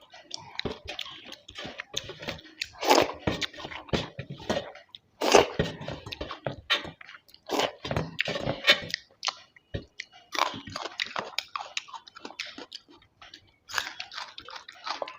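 Close-miked chewing and eating sounds of a rice-and-curry meal, wet mouth noises and small clicks coming in bursts with brief pauses between mouthfuls.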